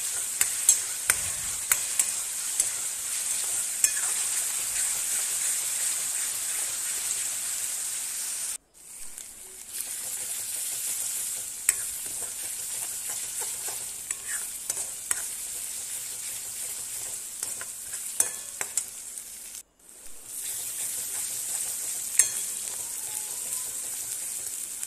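Garlic, onion, ginger and chilli paste sizzling in hot oil in a steel kadhai, with a steel spoon scraping and clicking against the pan as it is stirred. The sound cuts out briefly twice, about 9 and 20 seconds in.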